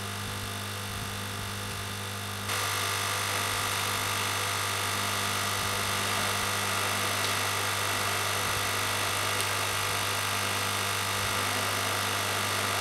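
Hot-air rework station blowing a steady rush of air onto a motherboard chip to reflow its solder, louder from about two and a half seconds in.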